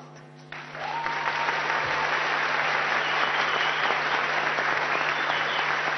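Large audience applauding: the clapping starts about half a second in, builds quickly and then holds steady.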